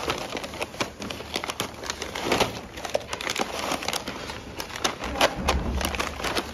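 Plastic snack pouches crinkling and rustling as they are handled and lifted out of a cardboard gift box, in an irregular run of crackles.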